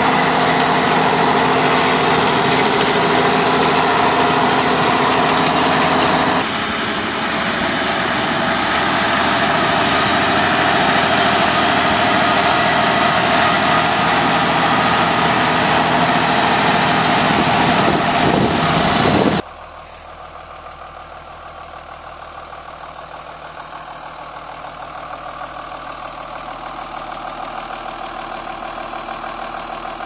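Ford Super Six tractor's six-cylinder diesel engine running steadily as it pulls a hay rake, with a small step in its sound about six seconds in. About two-thirds through, it changes to the same engine idling, much quieter at first and slowly getting louder.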